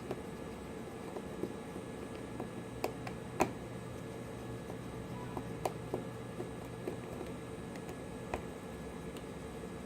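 Scattered light clicks and taps of small tools on a Samsung Galaxy Note 5's parts during disassembly, the sharpest about three and a half seconds in, over a steady background hum.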